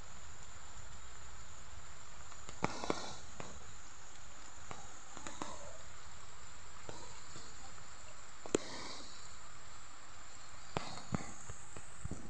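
Steady rushing noise of a river in flood and rain, with a thin, steady high tone over it and a few sharp taps, one of them louder, about two-thirds of the way through.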